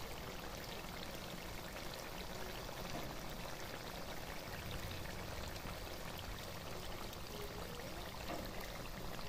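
Pork and potato curry bubbling in a wok as the gravy simmers: a steady hiss of many small pops and crackles.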